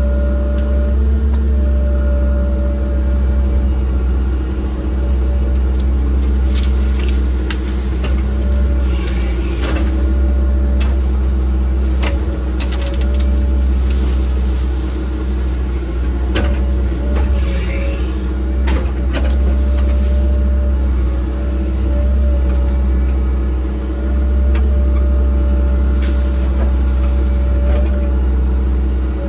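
Engine of land-clearing machinery running steadily under load, with scattered sharp knocks and cracks through the middle stretch.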